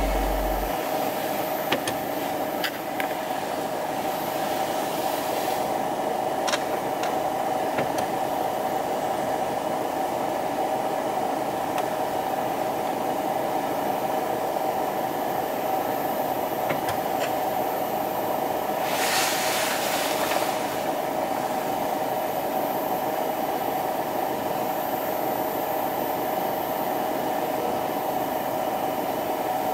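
Steady hum and hiss inside a Mercedes-Benz W213 E-Class cabin, with a few faint clicks and a brief rush of hiss about two-thirds of the way through.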